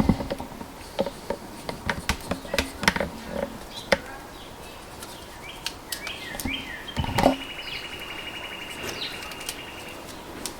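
Scattered small clicks and taps of hand work as the excess of a freshly inserted tire plug is trimmed off with a small knife. From about six and a half seconds in, a high, even chirping trill runs for about three seconds.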